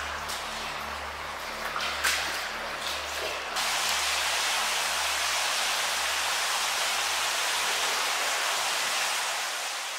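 Rushing floodwater running through a tunnel: a steady hiss that turns louder about three and a half seconds in and eases off near the end. Before that, a couple of brief sharp sounds, the loudest about two seconds in.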